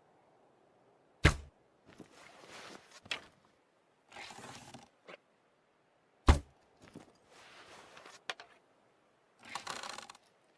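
Recurve bow being shot twice, about five seconds apart, each release a sharp, loud thwack. Between the shots come softer scraping and rustling sounds of the arrows and bow being handled and drawn.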